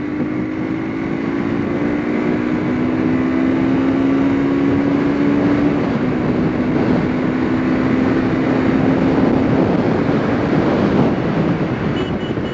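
Hero Xtreme 200R's carburetted single-cylinder engine pulling as the motorcycle accelerates to about 85 km/h. Its note climbs slowly, steps down about six seconds in, then sinks under wind rushing over the microphone.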